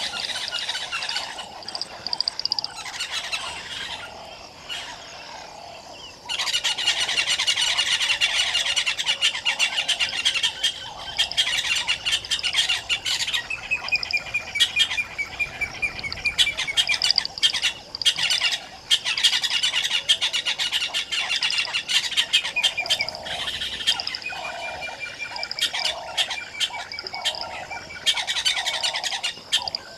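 A chorus of several wild birds singing and calling at once: dense chirping, with a descending trill repeated now and then. Beneath it runs a lower call repeated in regular pulses. The chorus grows louder about six seconds in.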